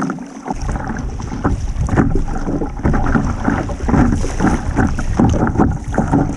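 Wind buffeting the microphone with a low rumble that sets in about half a second in, over water splashing and sloshing around a kayak.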